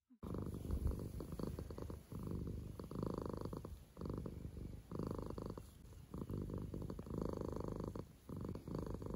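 Domestic cat purring steadily, the purr swelling and easing about once a second with each breath in and out. It cuts in suddenly just after the start.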